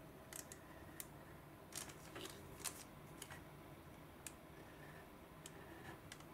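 Faint pen strokes on paper: a string of short, irregular scratches as the pen traces lines on a thin sheet laid over a template.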